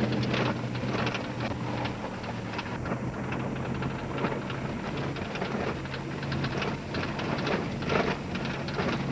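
Pickup truck driving on tire chains over a rough, snowy dirt road: a steady low engine drone under constant rattling, knocking and crackling as the truck bounces.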